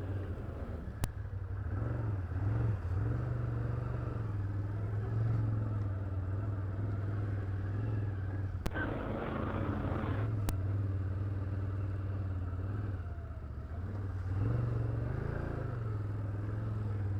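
Can-Am Outlander ATV engine running on the trail, its low drone rising and falling a little with the throttle. A few sharp clicks or knocks come through, one about a second in and two more past the middle.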